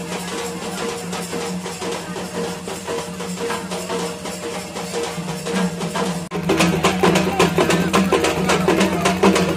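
Music with fast, dense percussion over a steady low held tone. About six seconds in it drops out for a moment and comes back louder, with busier strokes.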